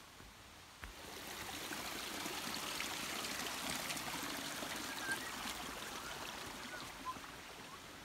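Small shallow creek babbling over rocks. It grows louder about a second in as it is approached, is loudest while passing right over it, then fades.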